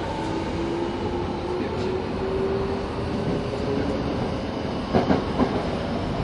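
Kobe Municipal Subway 3000 series train running: the traction motors' whine rises in pitch as the train accelerates out of the station, over steady running noise. A few wheel knocks over rail joints come about five seconds in.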